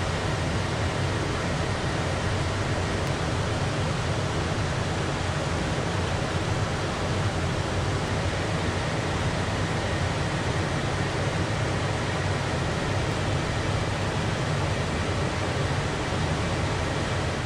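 Steady rushing noise of air and engines in the cockpit of a Beechcraft Premier I business jet at cruise altitude, even and unchanging.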